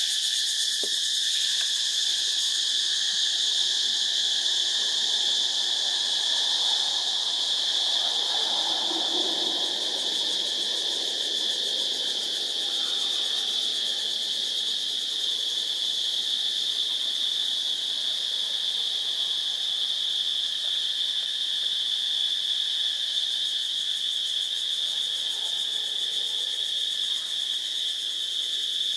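A steady, unbroken, high-pitched insect drone: a chorus of forest insects holding one strong even pitch with a fainter lower one beneath it.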